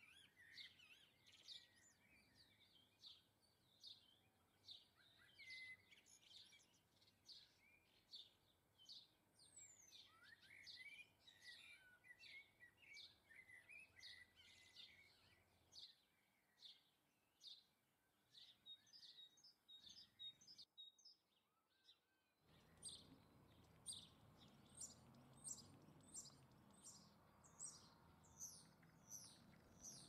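Faint chirping and twittering of small garden songbirds: many short high calls, several a second, with a brief break about two-thirds of the way through.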